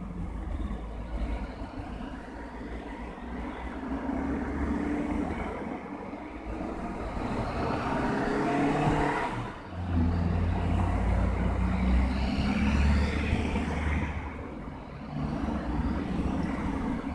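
Cycling-race team support cars driving past one after another, their engines running and accelerating with rising pitch. A brief dip about ten seconds in, then the loudest stretch as the next cars pass.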